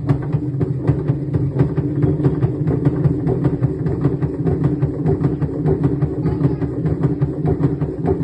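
Samsung front-load washing machine running with a steady hum and a rapid, irregular rattling knock, several knocks a second: the abnormal noise the machine is being repaired for.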